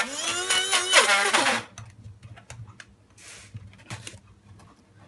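Small electric blade coffee grinder running on thick ground cocoa-nib paste. Its pitch sags and recovers over and over as it labours, and it cuts off about a second and a half in. Light clicks and knocks follow as the grinder is handled and its lid taken off.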